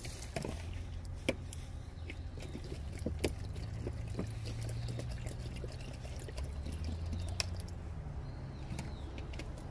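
A cat eating wet food from a plastic container: irregular small wet chewing and licking clicks over a low steady rumble.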